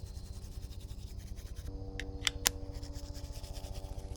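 Toothbrush scrubbing on teeth in fast, even strokes. A steady low hum joins about halfway through, and there are two sharp clicks soon after.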